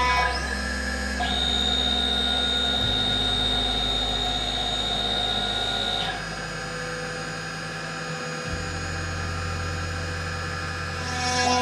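6090 CNC router running a carving program: the spindle motor runs steadily while the stepper motors drive the gantry across the workpiece. Its steady whining tones change abruptly several times as each move starts and stops, with a high whine joining in about a second in and dropping out around six seconds.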